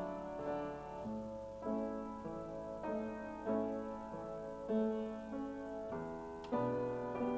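Piano music, slow and soft, with a new chord struck about every second.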